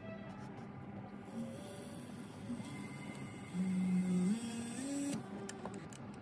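Jeweller's micromotor handpiece running a small bur as it cuts the claws between the diamonds of a white gold band: a steady machine whine that rises in pitch and gets louder past the middle, then stops about five seconds in.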